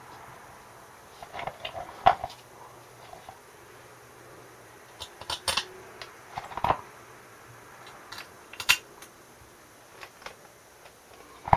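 Scattered sharp clicks and clinks of small metal parts and tools being handled, a handful of separate knocks a second or more apart, while a small engine's carburettor assembly is put back together.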